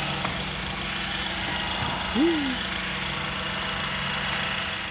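2011 Honda Accord's four-cylinder engine, a K24 by the owner's guess, idling steadily under the open hood, with a brief rising-then-falling tone about two seconds in.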